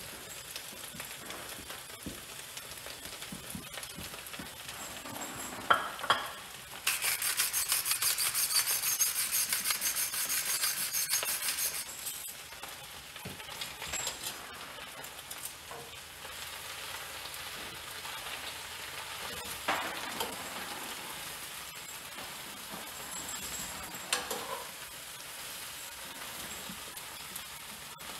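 Escarole leaves and garlic sizzling in olive oil in a skillet, wilting in the heat, with stirring and the clicks of utensils against the pan. From about 7 to 12 seconds in, a louder rapid grinding from a pepper mill.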